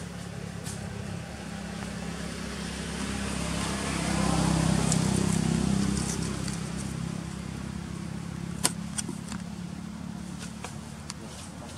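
A motor vehicle passing by: its engine hum and road noise swell to a peak in the middle and then fade away. A single sharp click comes about two-thirds of the way through.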